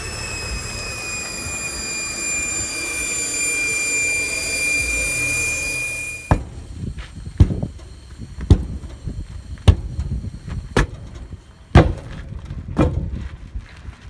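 Air hissing and whistling steadily from a deflating 24.5-inch semi-truck tire, sinking slightly in pitch, until it cuts off. Then a long steel bead-breaker bar strikes the tire bead about once a second, seven sharp metallic blows, to break the bead loose from the rim.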